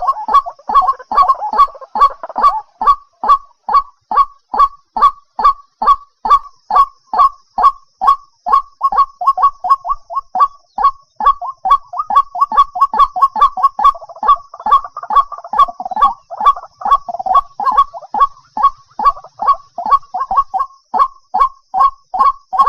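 White-breasted waterhen calling, a monotonous run of short 'kook' notes repeated about two to three times a second, with overlapping notes thickening the call near the start and again past the middle.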